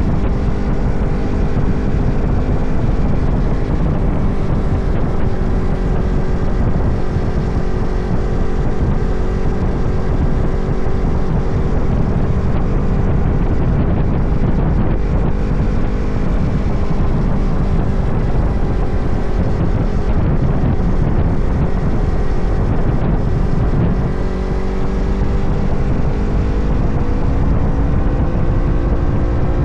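Motorcycle engine running under way, with wind buffeting the microphone. The engine note holds steady for most of the ride, dips slightly about three-quarters of the way through, then climbs as the bike speeds up near the end.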